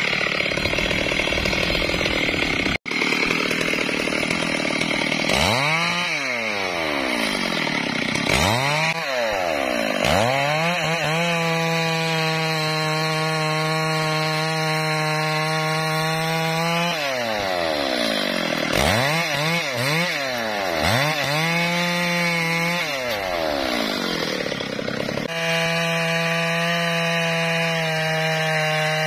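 Two-stroke chainsaw cutting into a rosewood log under load. After a brief break about three seconds in, its engine note falls and rises again and again as the throttle is worked, holding steady for several seconds at a time in between.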